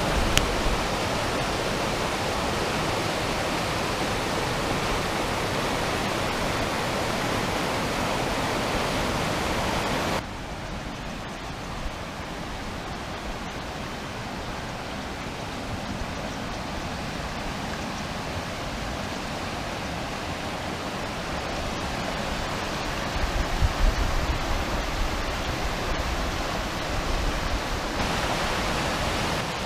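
Whitewater rapids of a mountain creek rushing over rocks and fallen logs, a steady rush of water. About ten seconds in the sound cuts to a softer, duller rush, and a few low thumps come near the end.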